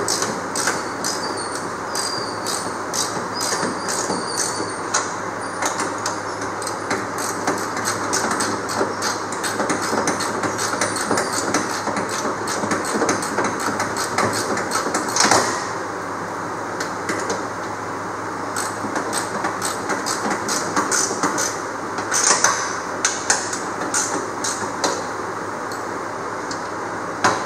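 Ratchet wrench clicking in quick runs while nuts are tightened on the jack plate's mounting bolts through a jon boat's transom, with a few louder metal knocks partway through.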